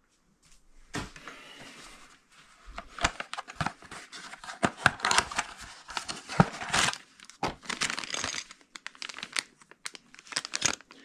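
Packaging being handled: a kraft-paper bag opened and a clear plastic zip bag of small parts pulled out and held, rustling and crinkling in a dense run of quick crackles that starts about a second in.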